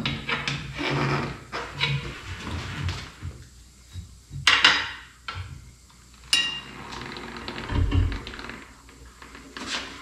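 Steel tire irons and bar clanking against a manual tire changer and wheel rim as a stiff motorcycle radial is pried off: scattered knocks, two sharp ringing metal clinks around the middle, and a low thud near the end.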